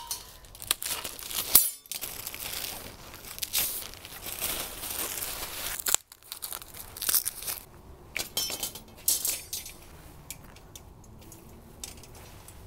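Plastic wrapping crinkling and tearing as it is stripped off a metal plant support. After a break about halfway through come scattered light clicks and clinks as the support's wire rings and parts are handled.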